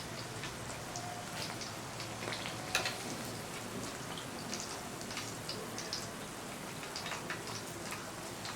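Chicken wings frying in hot oil: a steady sizzle with scattered crackles and pops, one sharper pop about three seconds in.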